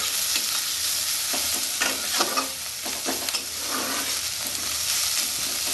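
Sliced onions sizzling in hot mustard oil in a kadai, stirred with a metal spatula that scrapes across the pan several times.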